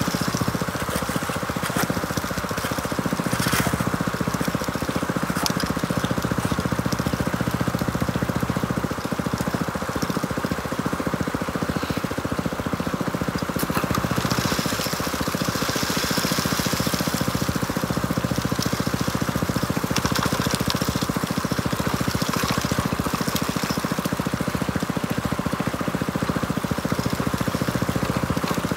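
Small engine-driven water pump running steadily, with water rushing through the high banker and a few brief knocks.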